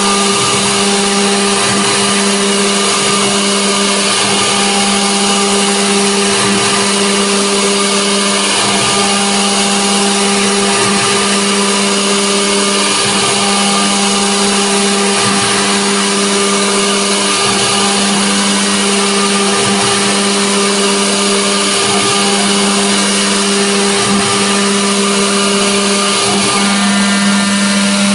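OMNI CNC router spindle running steadily as its bit carves a 3D relief into an aluminium plate. It makes a constant tone over dense cutting noise, with faint low pulses every second or two.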